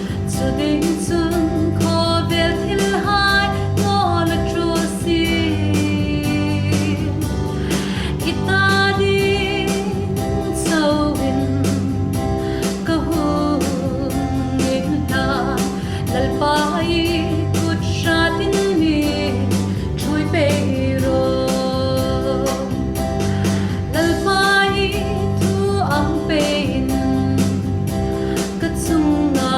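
A gospel song: singing over instrumental accompaniment with a steady beat.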